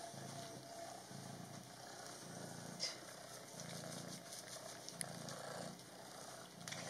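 Maine Coon kitten purring, a low buzz that swells and fades in an even rhythm with each breath in and out, while it is being bathed. Two brief clicks stand out, the louder one a little under three seconds in.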